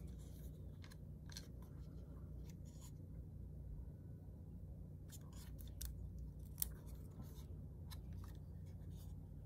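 Faint clicks and taps of a small plastic fingertip pulse oximeter being handled and turned over in the hands, with one sharper click about six and a half seconds in, over a low steady hum.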